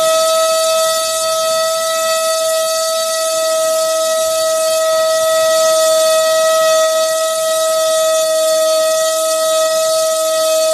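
Cobra 2208 2000 kV brushless motor spinning a 6x4.5 two-blade propeller on a thrust stand, a loud steady whine that holds one pitch. It is under heavy load, drawing about 20 amps on a 4S battery through a 12 A ESC well beyond its rating.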